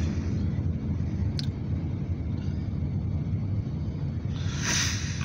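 Steady low road rumble of a car driving, heard from inside the cabin. There is a brief click about a second and a half in and a short hiss near the end.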